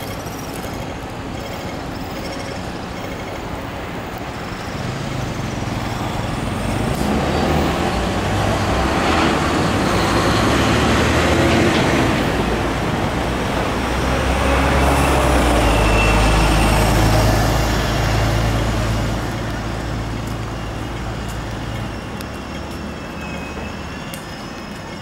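Road traffic with heavy vehicles passing close by: a low engine drone over tyre noise swells twice, about ten and seventeen seconds in, then fades away.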